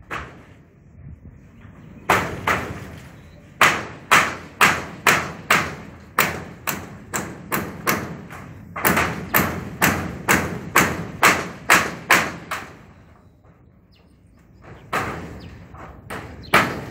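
Hammer striking roofing nails into corrugated metal roofing sheets, in runs of about two blows a second with short pauses between runs.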